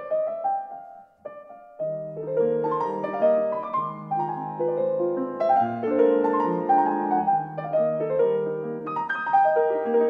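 Background piano music. A phrase dies away about a second in, and after a brief near-pause a new phrase of held piano chords begins and carries on.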